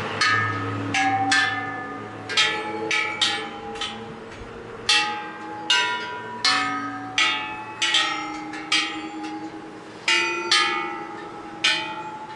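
Thai temple bells of several different pitches struck one after another at an irregular pace, about twenty strikes, each ringing briefly and overlapping the next.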